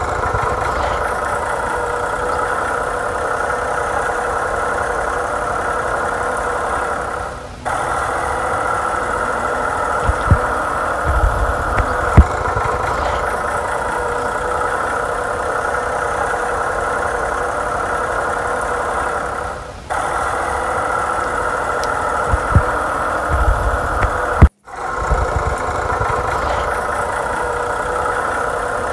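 Battery toy excavator's electronic engine sound effect, a steady idling loop that fades and starts again twice and cuts off briefly near the end, with a few light knocks along the way.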